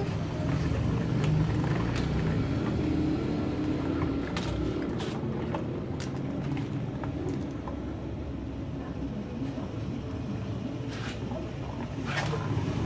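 Plastic toys clattering and splashing as they are handled in a basin of water, with a few sharp clicks, over a steady low hum.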